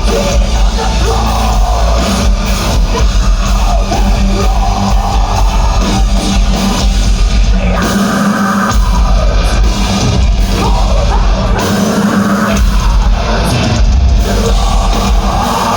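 Heavy metal band playing live, loud distorted electric guitars and bass over drum kit, with some singing; the low end drops out briefly twice, about eight and twelve seconds in.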